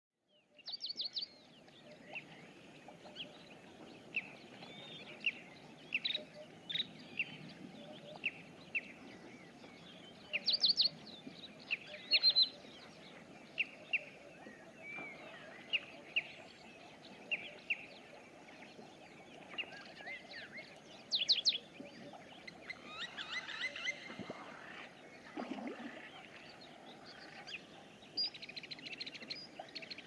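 Wild birds chirping and whistling: short, sharp calls come every second or so, over a steady low background hiss.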